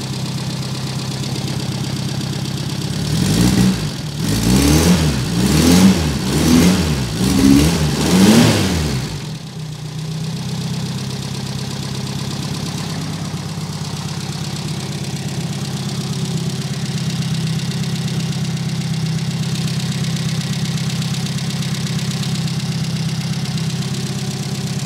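Renault Dauphine Gordini's four-cylinder engine idling steadily, blipped up and back down about five times a few seconds in, then settling back to idle. It is running to warm up after standing for months.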